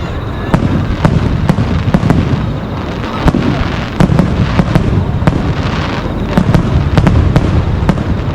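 Fireworks display: aerial shells bursting in quick succession, sharp cracks about two to three a second over continuous low booms, with a patch of crackle in the middle.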